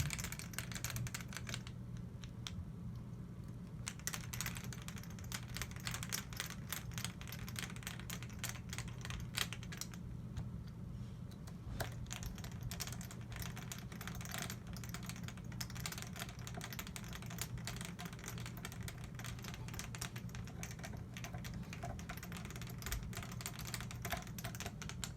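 Small metal parts of a GSG AK-47 .22 rifle being handled and fitted during reassembly: irregular light clicks and taps throughout, over a steady low hum.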